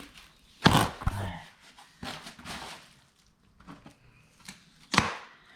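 Styrofoam packing being pulled apart and handled: scratchy squeaks and rustling, with two sharp snaps, about a second in and again near the end.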